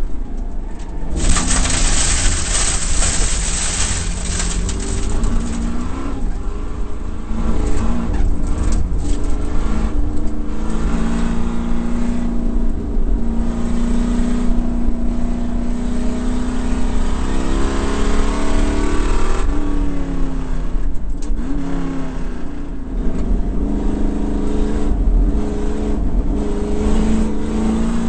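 A 1968 Ford Mustang race car's V8 heard from inside the cabin, revving hard as it pulls up through the gears and dropping in pitch on lifts and downshifts into corners. There is a brief loud rushing noise about a second in.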